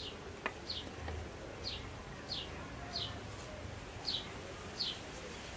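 A bird calling with short, high chirps that slide downward, repeated about once every three-quarters of a second. A faint click sounds about half a second in.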